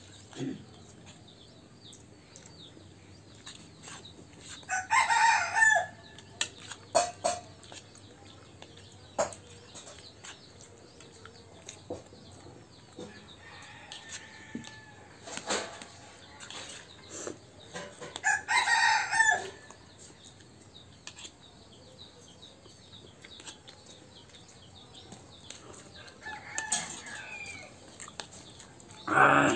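A rooster crowing about four times, each crow about a second long; these are the loudest sounds. Between the crows, spoons click and scrape on plates.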